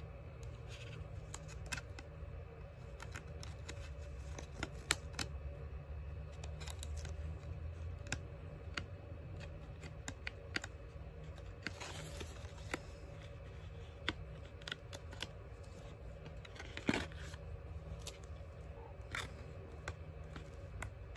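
Paper and card packaging inserts from an AirPods Pro box being handled and folded: scattered light crinkles, taps and rustles, with a louder crinkle about three-quarters of the way through, over a steady low room hum.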